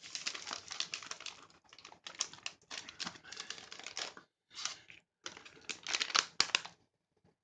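Plastic MRE dairy shake pouch crinkling and rustling in the hands, with dense irregular clicks broken by a few short pauses.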